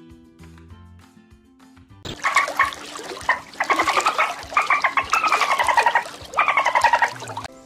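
Soft background music, then about two seconds in an animal breaks in with loud, harsh calls in three bursts, each call falling in pitch.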